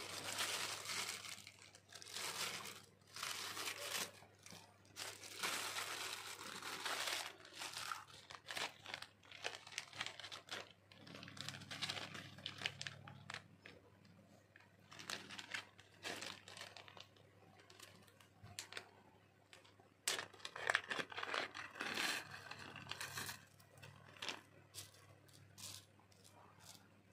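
Plastic mailer and zip-lock bags crinkling and rustling as they are handled and torn open, in irregular bursts that die down near the end.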